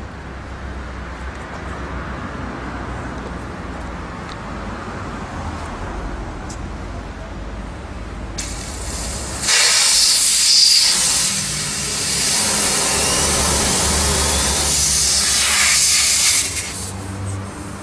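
Compressed air hissing at a tyre valve for about eight seconds as the hose fitting is worked on the valve. It starts about eight seconds in, comes in a loud stretch with a short dip, and cuts off near the end. A low steady hum comes before it.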